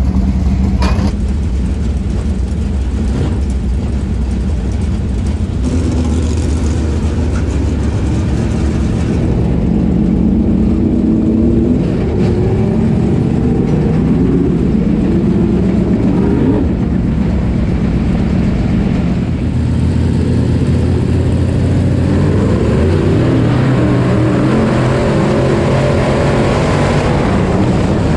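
IMCA Modified race car's V8 engine, heard from inside the car, revving up and falling back again and again as it runs laps.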